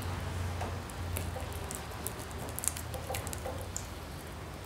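A knife cutting around a pig's eye socket: scattered small wet squelches and clicks of the blade in flesh and gristle, over a low steady hum.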